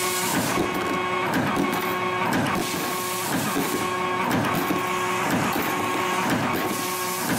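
YHM CF-330 CNC spring coiling machine forming 3.2 mm wire into compression springs. Its servo-driven feed and coiling motors whine in a steady repeating cycle with clicks through it, at a rate of about 60 springs a minute.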